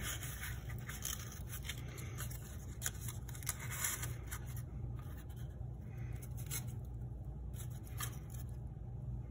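Corrugated cardboard pieces being handled and pushed into cut slots: dry scraping and rustling with small ticks, busiest in the first half, over a steady low hum.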